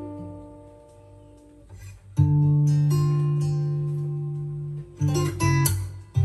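Acoustic guitar intro of a ballad, played back through a Marshall Woburn III speaker. A chord rings and fades, then a loud new chord with a deep bass note comes in about two seconds in and decays slowly. Quick plucked notes and a short strum follow near the end.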